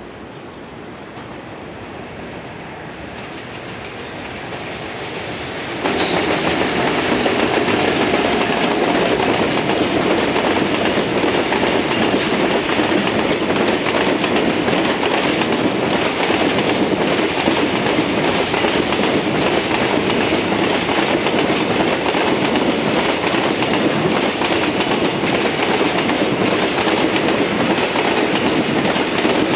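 Container freight train hauled by an EF210 electric locomotive passing close by. The noise builds as the train approaches, rises sharply about six seconds in, then holds as steady wheel-on-rail noise while the container wagons roll past.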